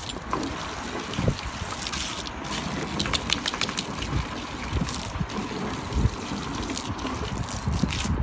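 Garden hose water jet hissing and splashing into a plastic paddling pool and over a dog that snaps at the stream, with irregular splashes, crackles and low thumps.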